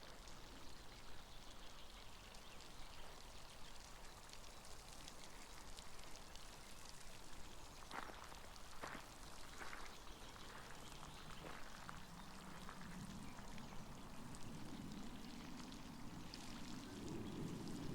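Steady faint patter and splash of water, with a few sharper drips or ticks just before the middle. A low rumble builds from about two-thirds through and grows louder near the end.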